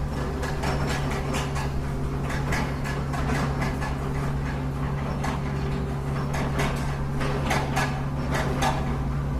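Remote-control construction machine running, a steady low motor hum under a string of irregular small clicks and knocks.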